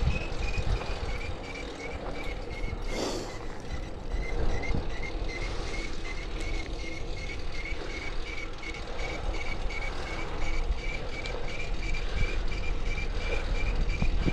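Bicycle drivetrain with its chain adjusted too tight, giving a regular high chirp about two to three times a second over a low rumble of riding noise. A brief rush of noise comes about three seconds in.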